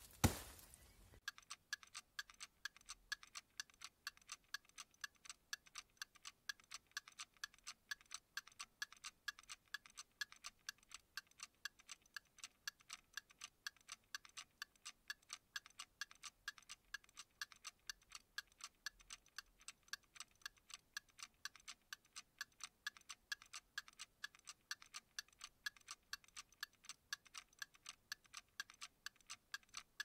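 Clock ticking steadily and evenly, faint, starting about a second in, after a single sharp click.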